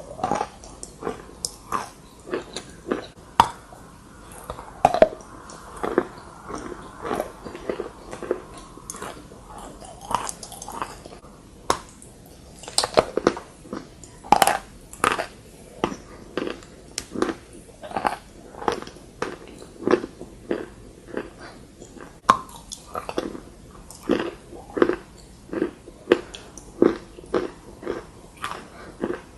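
Chalk being bitten and chewed close to the microphone: a steady run of crisp crunches, roughly one to two a second.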